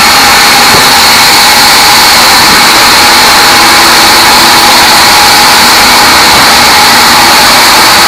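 Large sawmill band saw running and ripping a small teak log into slabs: a loud, steady, high-pitched whine over a dense rushing noise.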